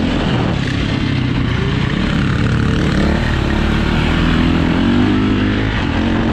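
2004 KTM 450 EXC's four-stroke single-cylinder engine running under throttle on a dirt track, heard from on board the bike. Its pitch climbs from about three seconds in and drops again near the end.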